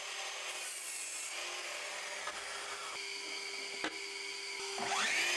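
Electric sliding compound miter saw cutting short lengths of softwood. A single click comes a little before the end, and the motor's pitch rises near the end.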